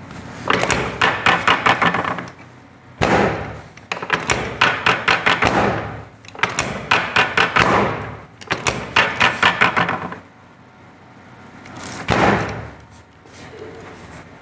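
Chiropractic drop table knocking in quick bursts of about five sharp knocks a second, each burst lasting a second or two. Two heavier single clunks stand out among them.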